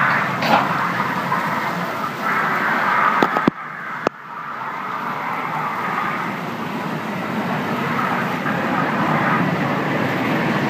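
A rotating shark-island kiddie ride running, heard from one of its fish-shaped seats: a steady mechanical rumble and hiss. The sound cuts out for about half a second between two clicks, about three and a half seconds in.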